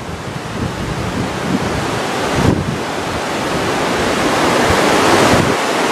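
Muddy floodwater rushing fast through a swollen riverbed, a steady roar of turbulent water with wind buffeting the microphone, growing louder in the second half.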